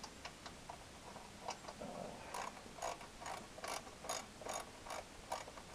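Ratchet wrench clicking as a bolt on a lawn tractor's engine cowling is worked. A few light ticks come first, then an even run of about two or three clicks a second through the second half.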